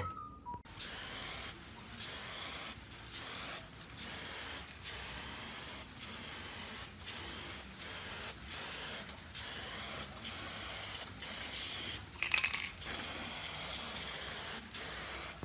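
Aerosol spray paint can sprayed in a long run of short bursts, about one a second, each a hiss that stops sharply between strokes.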